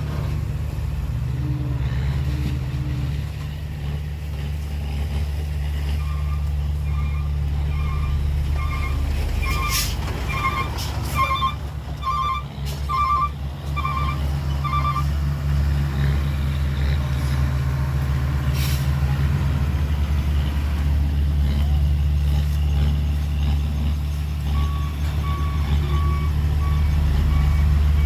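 Dump truck reversing: a diesel engine runs steadily under a repeating back-up alarm that beeps nearly twice a second, stops for a while partway through and then starts again near the end. There are two short sharp noises in between.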